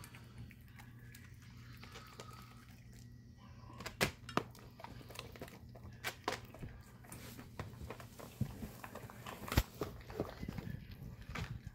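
Pit bull puppy chewing raw food, including a raw chicken foot, with scattered sharp clicks and knocks, the loudest about four seconds in and near the end, over a steady low hum.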